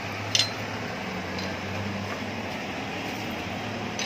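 A sharp metallic clink about half a second in, then a few lighter ticks, as metal tools and exhaust parts are handled while a heat sensor is fitted to a motorcycle exhaust elbow, over a steady low hum.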